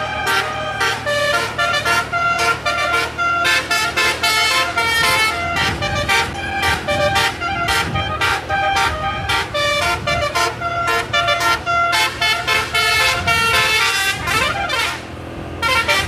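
Basuri musical air horn playing a fast tune in short, rapid notes, with a steady low hum under it. About thirteen seconds in, the pitch sweeps upward.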